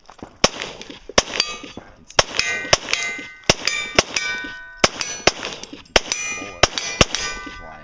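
Handgun firing a long string of shots, about two a second, at steel targets, with many hits answered by the steel plates ringing.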